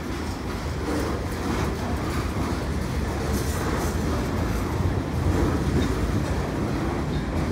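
A CN freight train's double-stack container cars rolling past, a steady rumble of steel wheels on rail.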